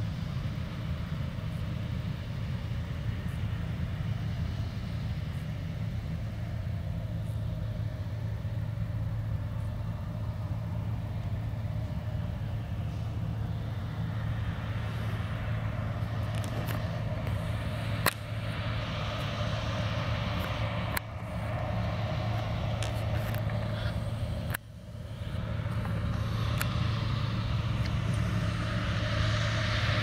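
Claas Lexion 430 combine harvester running under load while harvesting maize with its corn header: a steady low engine drone with threshing noise over it. There are a few abrupt breaks in the sound in the second half.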